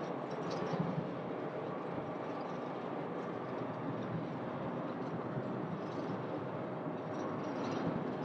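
Distant jet airliner noise as a rear-engined twin-jet lands and rolls out along the runway: a steady, even rumble.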